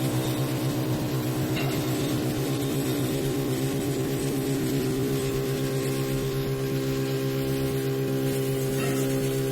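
Five-axis CNC wood lathe running with a steady mechanical hum. Its pitch wavers for the first few seconds, then settles and holds steady.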